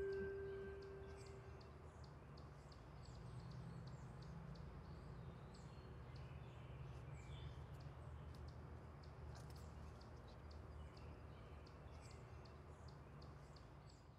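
Faint outdoor ambience: many short, high bird chirps scattered over a low steady rumble. A held ringing tone dies away in the first second or two.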